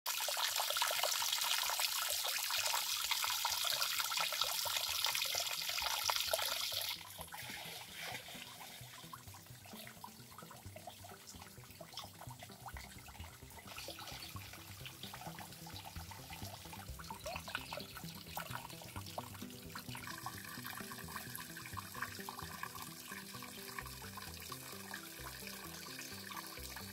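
Loud rushing water that cuts off suddenly about seven seconds in, followed by soft background music with a faint trickle of water.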